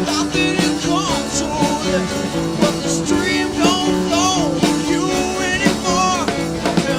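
Rock song by a full band: drum hits at a steady beat, with a melody line gliding up and down over a sustained guitar and bass backing.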